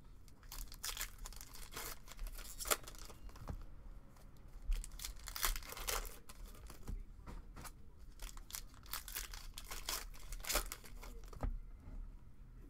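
Foil wrapper of a trading-card pack being torn open and crinkled by hand: a string of short rips and crackles.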